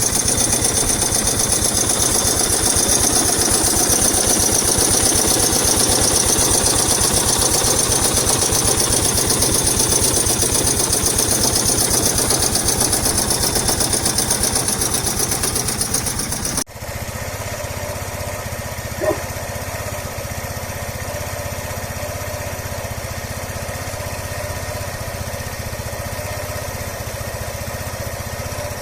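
Yamaha SR125 single-cylinder four-stroke engine running steadily with a loud knocking, harsh clatter: a bad-sounding, worn engine. A little over halfway through it cuts to a replacement engine of the same type, with 10,800 km on it, running quieter and smoother, with one short click soon after.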